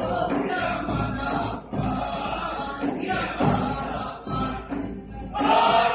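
A song sung live with musical accompaniment.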